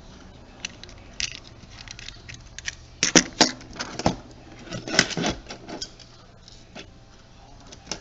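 Small clicks, ticks and scrapes of a small screwdriver working a tiny screw out of a camcorder's internal parts, with two louder clusters of clicks about three and five seconds in.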